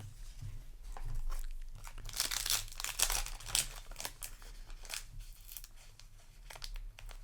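Foil booster pack wrapper crinkling and tearing as the pack is handled and opened, in short irregular rustles.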